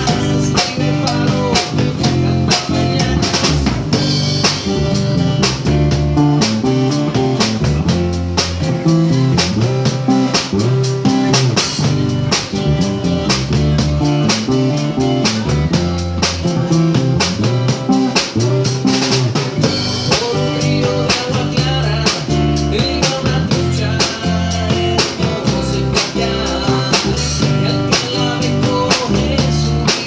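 Live band playing: acoustic guitars over a drum kit keeping a steady beat on snare and bass drum.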